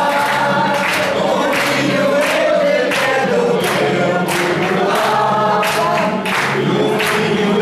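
A group of people singing together, with steady rhythmic hand-clapping keeping time about two to three claps a second.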